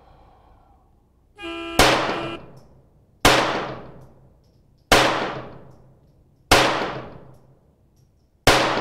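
A steady start tone, then five .22 LR pistol shots from a CZ 75B with a Kadet .22 conversion, fired as a rapid-fire string about one and a half seconds apart. Each shot rings out with a long echo.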